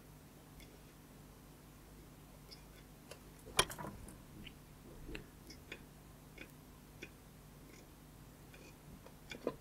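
Faint, scattered ticks and light scraping as a soldering iron tip is dragged and tapped across the pads of a small circuit board, laying down fresh solder, over a low steady hum. One sharper click stands out about three and a half seconds in, another just before the end.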